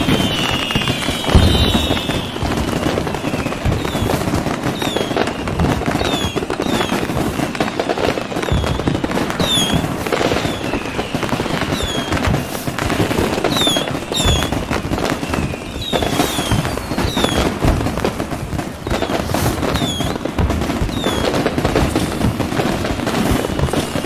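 Fireworks display: a dense, continuous run of bangs and crackling from aerial shells, with short high chirps recurring throughout.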